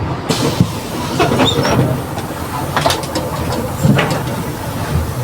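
Mercedes-Benz OF 1721 BlueTec 5 bus under way, heard from inside the cabin: a steady low drivetrain rumble with the rear differential growling. Body panels rattle and click throughout, with a few faint squeaks.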